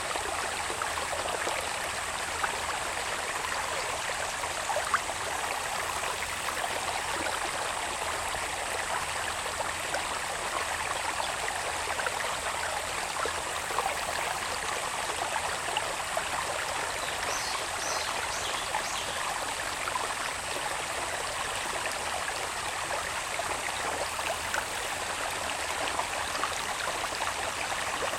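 Small irrigation channel of water babbling steadily, over a continuous high, even insect drone. A few brief high chirps come about two-thirds of the way through.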